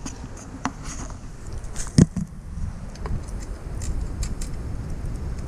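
Scattered light metallic clicks from bolts being handled and fitted on a surrey bike frame, with one sharp knock about two seconds in, over a steady low rumble.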